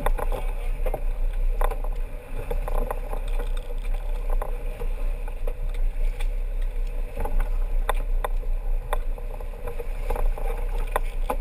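Sportfishing boat's engine running steadily in gear, with water splashing at the stern and scattered knocks throughout.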